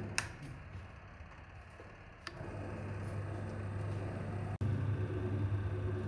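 Electric motor of a home-built gear-drive washing machine humming with its belt drive running. A switch clicks just after the start and the hum drops, then a second click about two seconds in brings the motor hum back up, louder after a brief break a little past halfway.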